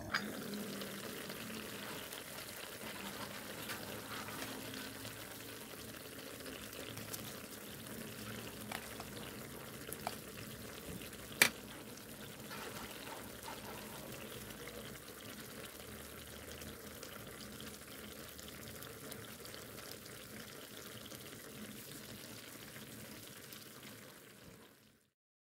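Chicken in gochujang chilli sauce simmering in a cast-iron skillet, a steady bubbling sizzle. A few light clicks sound over it, the sharpest about eleven seconds in.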